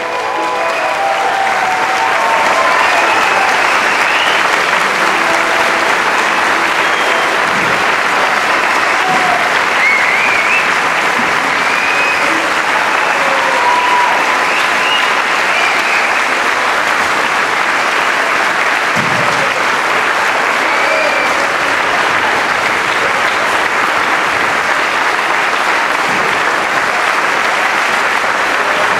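Audience applauding, swelling over the first couple of seconds, then a dense, steady clapping that holds throughout.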